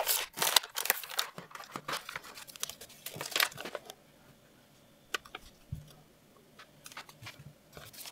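Plastic blister pack crinkling and cardboard backing tearing as an action-figure package is opened by hand, with dense crackles for the first few seconds, then quieter, then a few scattered crinkles near the end.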